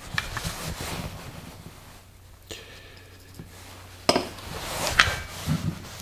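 Handling noises from a metal motorcycle drum brake panel and its parts being worked on a wooden bench: a faint click about two and a half seconds in, then two sharp knocks about four and five seconds in.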